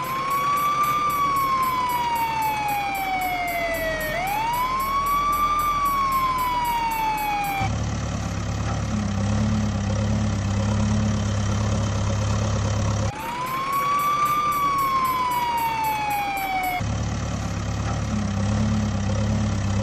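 An emergency-vehicle siren wails: each wail rises quickly, then falls slowly, twice in a row at first and once more later. It alternates with a low, steady engine rumble of a heavy vehicle.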